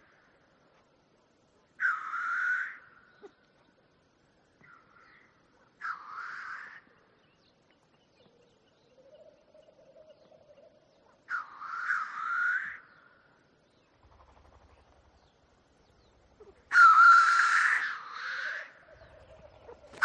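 Black grouse cock giving harsh, hissing calls at the lek, about five of them, each lasting about a second, the loudest near the end. Between the calls a faint, lower, steadier sound can be heard, typical of the blackcock's bubbling display song.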